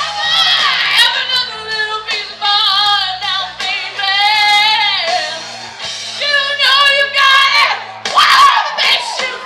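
Music with a singer's voice, the held notes wavering in vibrato over a steady bass line.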